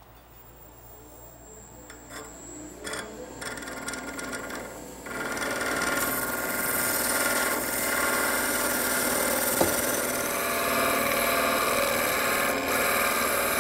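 Wood lathe coming up to speed, then a skew chisel taking a shear cut along the spinning baseball bat blank: a steady cutting noise starts suddenly about five seconds in and holds.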